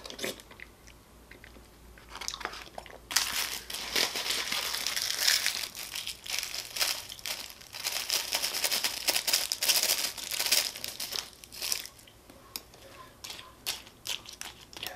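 Small plastic food packet crinkling and tearing as it is opened and squeezed out, in a dense run of crackles lasting several seconds, then thinning to scattered crinkles near the end.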